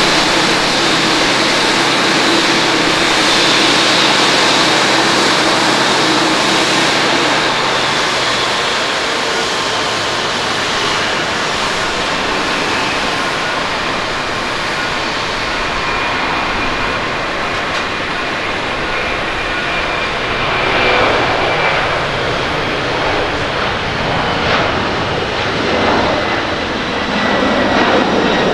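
Boeing 767-300ER's twin jet engines at takeoff power: a loud, steady jet noise with a high whine in the first few seconds, growing louder and rougher over the last several seconds as the airliner rolls and lifts off.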